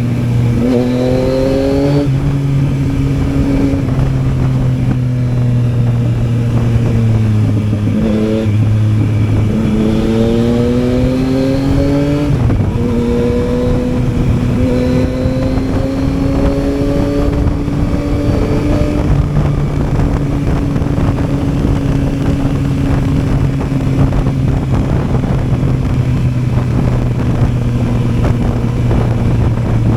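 Yamaha Tracer 900's three-cylinder engine riding under load. It pulls up in pitch several times, dropping back at each gear change, then holds a steady cruising pitch for about the last ten seconds, over a constant rush of wind noise.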